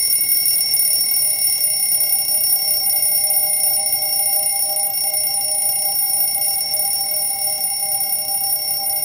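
Twin-bell alarm clock ringing: a loud, continuous metallic ring that starts abruptly out of silence and holds steady.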